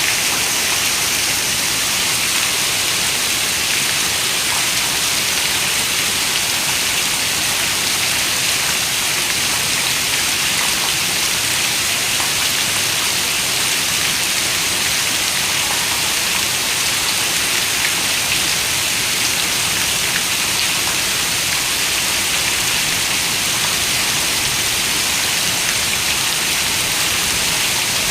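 Steady rain falling on a window: an even, unbroken hiss of many drops with faint scattered patters.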